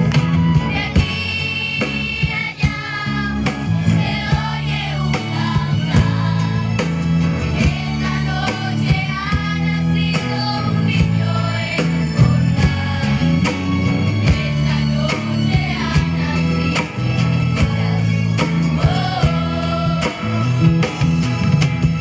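Live song performance: singing over guitar, bass and percussion with a steady beat.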